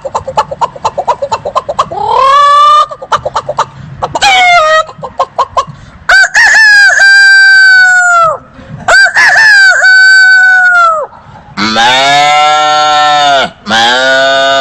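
Man imitating a chicken with his mouth: rapid clucking for the first couple of seconds, then a string of long rooster-crow calls, each rising at the start and dropping off at the end.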